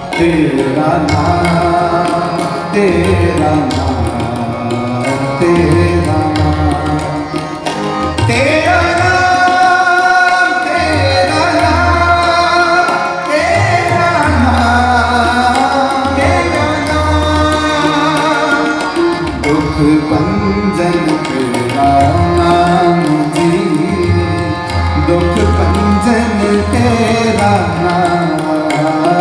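Sikh shabad kirtan music: tabla playing a steady rhythm under a melody that rises and falls in long slides.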